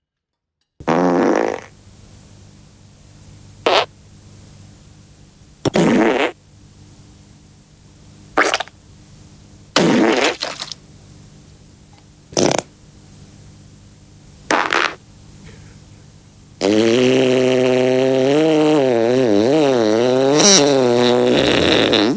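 A series of wet fart sound effects: seven short farts two to three seconds apart, then one long fart of about five seconds whose pitch wavers up and down. A steady low hum sits under the gaps.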